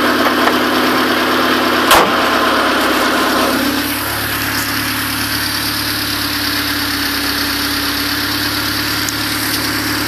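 Car engine idling, with one sharp click about two seconds in; the idle then settles to a lower, steadier sound at about four seconds. The owner is asking about a clacking noise from this car.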